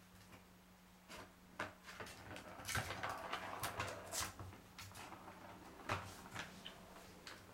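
A plastic ball rattling and rolling around a figure-eight plastic track toy, with irregular clicks and knocks as a kitten bats at it, busiest about three to four seconds in. A faint steady low hum sits underneath.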